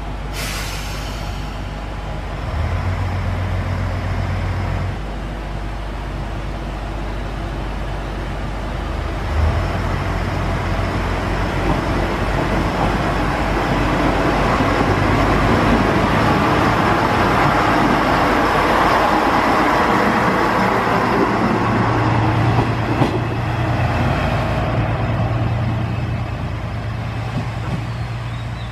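Single-car JR Shikoku 1000 series diesel railcar running at low speed, its engine note steady at first, then growing louder and fuller in the middle as the railcar works, before easing off near the end. A short, sharp, high sound right at the start.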